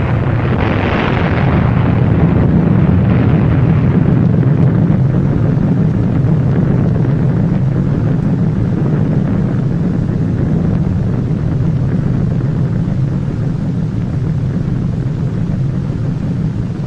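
Atomic bomb air burst: a loud rush of noise, strongest at the start, that thins out over the first four or five seconds into a steady low rumble.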